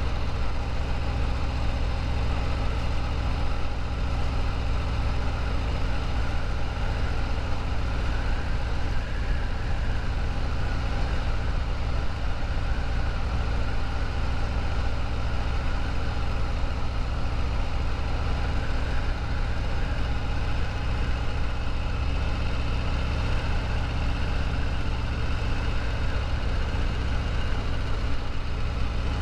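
2021 Harley-Davidson Sport Glide's 107 cubic inch Milwaukee-Eight V-twin running at a steady cruising pace, heard from the bike with a heavy low rumble of wind on the microphone.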